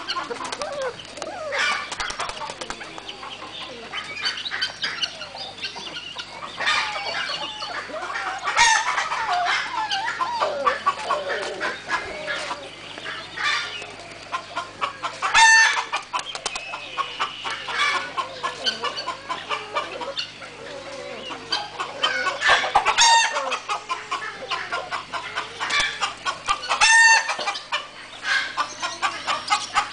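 Chickens clucking continually, with several louder pitched calls standing out about halfway through and again near the end.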